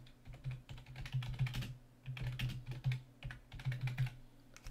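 Typing on a computer keyboard: a quick run of keystrokes, a few words' worth, with a brief pause about two seconds in.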